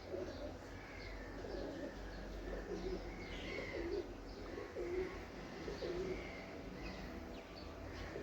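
Pigeons cooing, a low call repeating about once a second, with small birds chirping higher up in the background.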